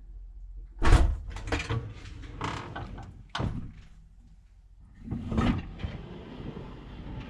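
Dishwasher door being opened and a rack slid out: a loud clunk about a second in, several more knocks and rattles, then a longer stretch of rattling and sliding.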